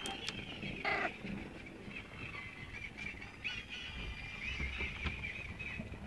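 Snowshoe cat making a run of high-pitched squeaky, chirping calls, the voice likened to a baby alligator, as she demands attention. A brief louder noise about a second in.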